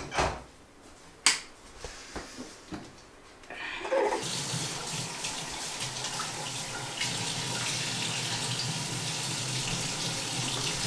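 A few sharp clicks and knocks, then about four seconds in a bathroom tap is turned on and water runs steadily into the sink.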